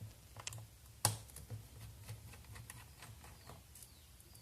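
Scattered light clicks and taps of a small screwdriver and fingers on a laptop's plastic underside, with one sharper click about a second in, as screws and rubber feet are being removed to open the casing.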